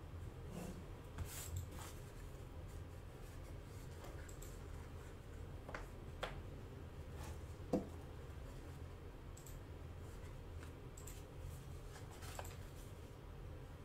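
Hands handling and folding small pieces of white card on a tabletop: faint rubbing and light clicks, with one sharper tap a little past halfway, over a steady low hum.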